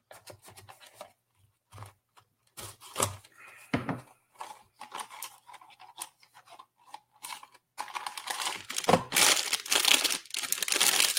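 Vinyl-toy blind-box packaging being torn open and crinkled by hand: scattered crackles and short tearing strokes, then a denser, louder stretch of tearing and crinkling from about eight seconds in.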